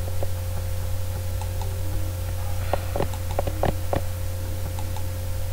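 A few sharp computer mouse clicks close together, about three to four seconds in, over a steady low electrical hum.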